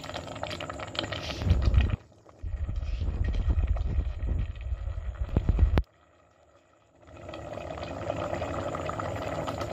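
A low, steady rumble that cuts off abruptly twice, then from about seven seconds the soft, steady bubbling of pumpkin mash simmering in a metal pot.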